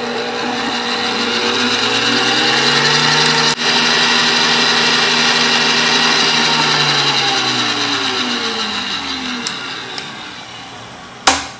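Electric stand mixer with a wire whisk attachment running, whipping egg whites and lemon juice in a glass bowl into a meringue. The motor slows and stops about ten seconds in, and a sharp click follows near the end.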